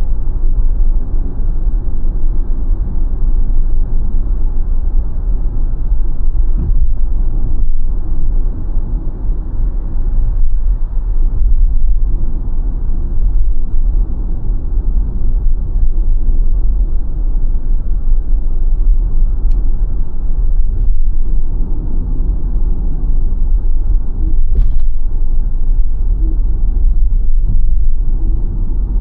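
Steady low road and tyre rumble of a BYD Sealion 7 electric SUV on the move, with no engine note.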